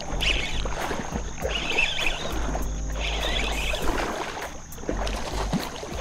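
Water splashing and a fishing reel being worked while a hooked striped bass is fought close to the bank, with short high rasps recurring about every second and a half. Gusts of wind rumble on the microphone.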